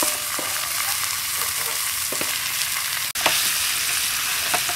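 Water snake pieces sizzling in chili paste in a hot metal wok, with scattered clicks and scrapes as a wooden spatula stirs them. The sound cuts out for an instant about three seconds in, then the sizzling carries on.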